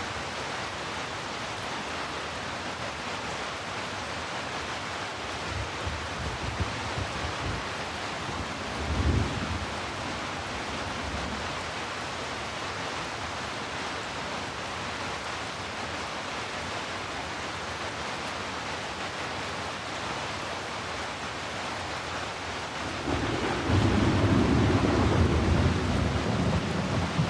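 Steady heavy rain, a dense even hiss. Low rumbles swell briefly about six and nine seconds in, and a longer, louder rumble starts a few seconds before the end.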